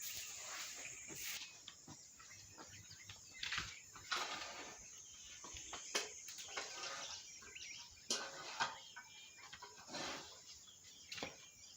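Broom sweeping goat droppings across the goat-house floor: a series of irregular swishing strokes, with a faint bird chirp.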